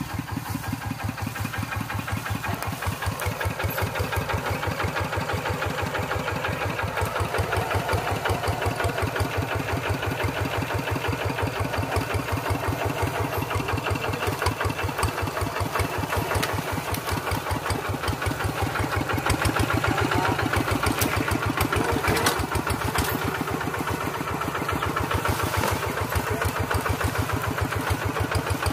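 Single-cylinder diesel engine of a two-wheel hand tractor running steadily, with an even, rapid beat of firing pulses.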